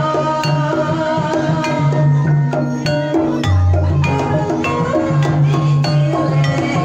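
Banyumasan jaranan (kuda kepang) accompaniment: an ensemble of struck, tuned percussion plays quick, ringing notes over a steady low pulse. A deep hand-drum stroke comes a little past the middle.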